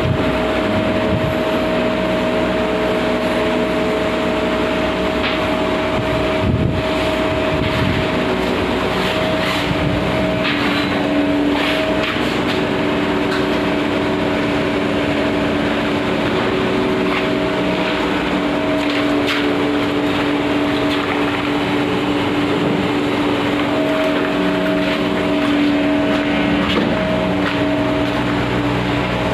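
LMW Smart Turn CNC turning lathe running: a steady machine hum with several held tones, over a noisy haze and a few faint clicks.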